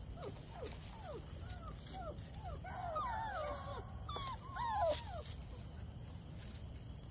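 Puppies yipping and squealing while they play-fight: a string of short calls that fall in pitch, coming thick and fast and loudest in the middle.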